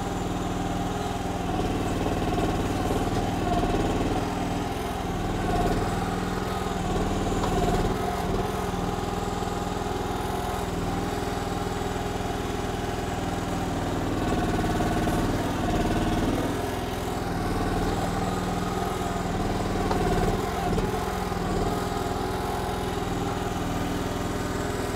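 Briggs gas engine of a KYMRON XH14 mini excavator running steadily at part throttle while digging, its sound swelling and easing several times as the Parker hydraulic pump takes load.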